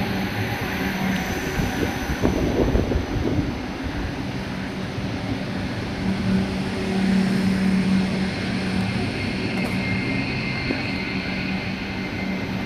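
DB Class 425 electric multiple unit running with steady whining tones from its electrical equipment over rolling noise, louder about two seconds in and again about six to eight seconds in.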